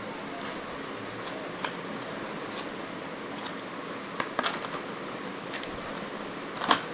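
Packaging of a portable hard drive being handled during unboxing: scattered plastic clicks and crinkles over a steady hiss, with a small cluster past the middle and the sharpest click near the end.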